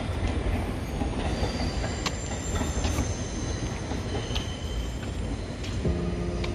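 Passing train on rails: a steady low rumble with faint high wheel squeal and a few light clicks.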